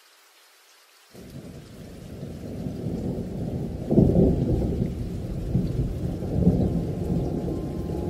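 Rolling thunder with rain: a low rumble starts about a second in, swells to its loudest about four seconds in, and keeps rolling with smaller swells.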